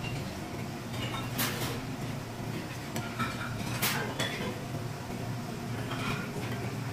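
Metal chopsticks clinking against the charcoal grill grate and small ceramic and metal side dishes: a few sharp clinks, over a steady low hum.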